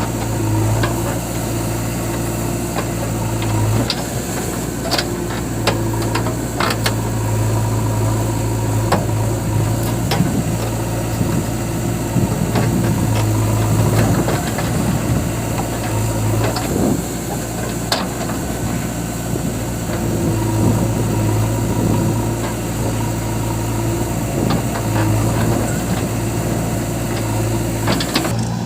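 Diesel engine of a JCB 3DX backhoe loader running steadily at work, its hum swelling and easing every few seconds, with scattered sharp knocks.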